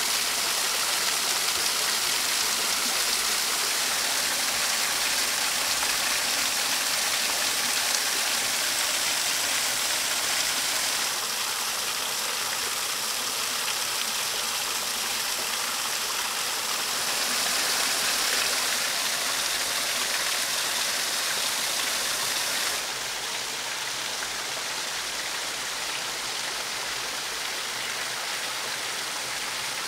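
A small waterfall and stream rushing steadily. The rush drops slightly in level about two-thirds of the way through.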